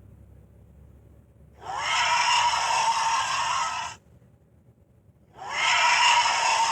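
Featherhead Sharptooth dinosaur sound effect: two harsh, loud creature calls. The first starts about one and a half seconds in and lasts a little over two seconds; the second begins near the end.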